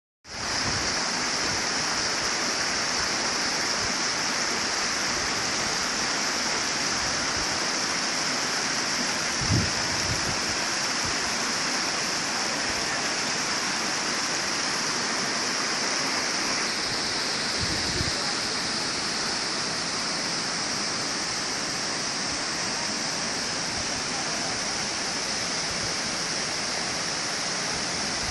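Mountain river rushing over boulders and small rapids: a steady rush of water, with two brief low bumps about ten and eighteen seconds in.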